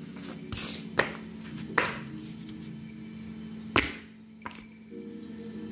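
Sandal footsteps on a laminate floor close to the microphone: a few sharp, irregular taps, over a steady low background tone.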